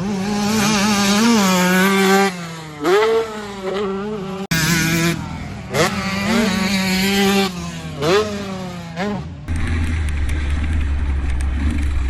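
Honda CR125 single-cylinder two-stroke engine revving hard under load. Its high note holds, drops and sweeps back up several times as the throttle is opened and shut. Near the end the engine note gives way to a low rumble and rushing wind noise.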